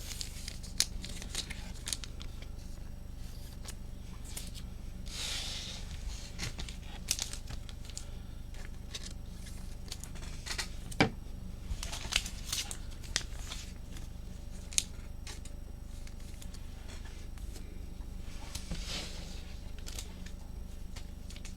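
Trading cards and their packaging being handled: soft rustles and scrapes of card, paper and plastic with scattered small clicks, the sharpest about eleven seconds in, over a steady low hum.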